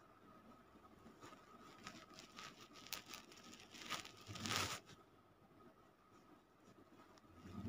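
Sleeping dog snoring: rough, crackly breathing, with a louder snore about four and a half seconds in and another near the end.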